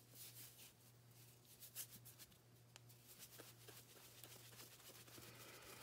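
Near silence: faint rustles and a few light clicks of craft materials being handled on a worktable, over a steady low electrical hum.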